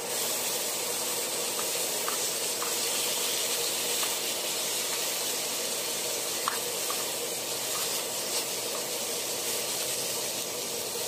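Thin slices of pork frying in oil in a hot pan, sizzling steadily, with a few faint ticks scattered through.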